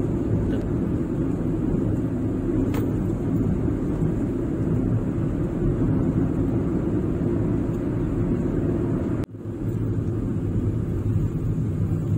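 Steady low rumble of a car driving along a road: engine and tyre noise from the moving vehicle. The sound drops out for a split second about nine seconds in.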